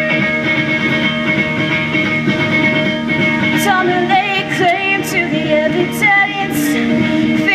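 Live rock band playing a pop-punk song: distorted electric guitars and bass hold ringing chords, and a singer comes in about three and a half seconds in over drums and cymbal hits.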